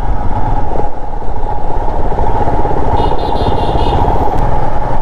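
Royal Enfield Himalayan's single-cylinder engine running at low speed, heard from the rider's seat with wind noise over the microphone. A brief high-pitched tone sounds about three seconds in.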